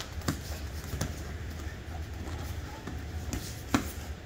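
A few scattered thuds and slaps, the loudest near the end, from two people moving barefoot on foam training mats, over a low steady hum.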